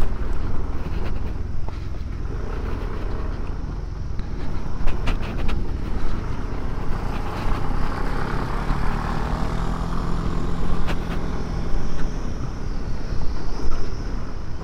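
Scooter being ridden over a rough gravel and dirt track: the engine runs steadily under a heavy low rumble of wind on the microphone, with scattered clatters and knocks from the bumpy surface.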